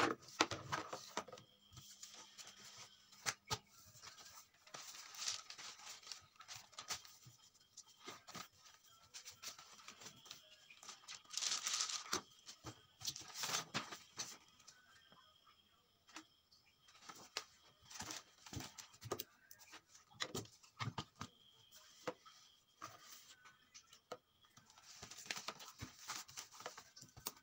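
Faint rustling of paper sheets and pages being leafed through, in scattered short bursts with a longer stretch about halfway through, along with light taps and scratches of a ballpoint pen writing on paper.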